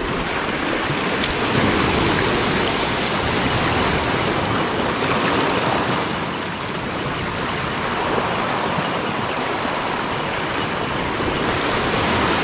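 Sea surf washing over a rocky reef shelf: a steady rush of foaming water that swells and eases a little.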